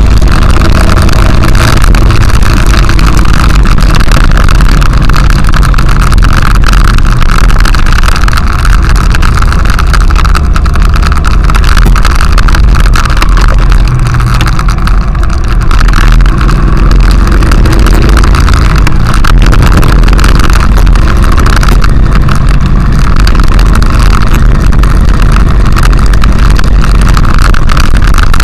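Honda XRV750 Africa Twin's V-twin engine running steadily at riding speed, under loud wind buffeting on the bike-mounted camera's microphone.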